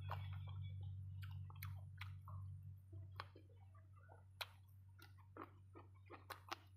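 A person chewing and biting food close to the microphone: irregular short crunches and mouth clicks, over a steady low hum.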